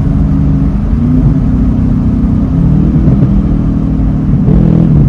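Chevrolet Camaro SS's L99 6.2-litre V8 running under way through an exhaust with the mufflers deleted and the resonators still on. The engine note rises and falls in pitch several times with the throttle.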